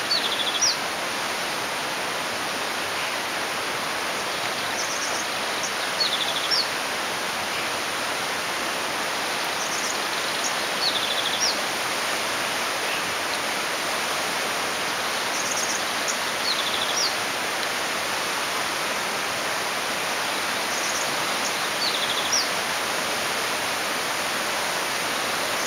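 Steady rush of running water, with a small bird singing the same short, high phrase of quick trills and upward whistles about every five to six seconds.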